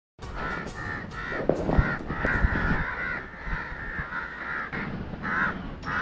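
Crow caws, a quick series of about a dozen short harsh calls, a few of them drawn out longer.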